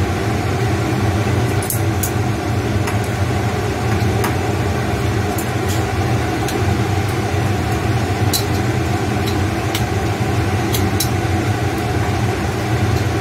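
Leafy greens sizzling as they are stir-fried in a wok on a gas stove, with scattered sharp clicks of chopsticks against the wok, over a steady low hum.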